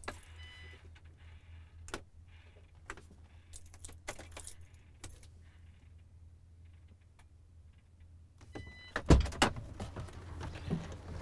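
Switch clicks in a MAN truck cab over a steady low hum, with short beeps near the start and again just before nine seconds. About nine seconds in, a loud clunk and clatter as the driver's door is opened and he climbs out.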